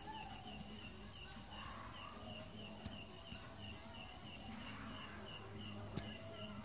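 Faint, steady chirping, about five short chirps a second, over a low hum, with a few scattered sharp ticks.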